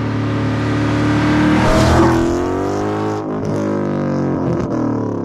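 Car engine driving past at speed. Its note is loudest about two seconds in, and its pitch rises and falls.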